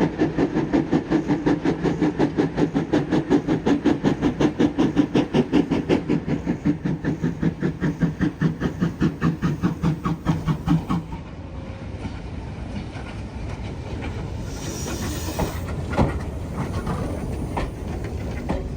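Steam locomotive working, its exhaust beats coming fast and regular for about eleven seconds, then giving way to a steady rushing noise with a short burst of hiss near the end.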